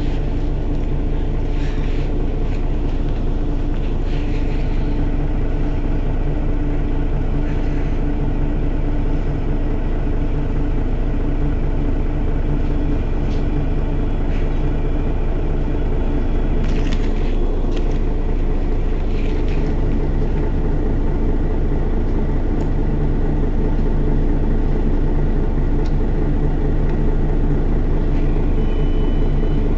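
Mercedes-Benz Citaro city bus idling at a stop, heard from behind at its rear-mounted engine: a steady, even engine note with a low rumble that holds unchanged throughout. A few faint clicks can be heard in the middle.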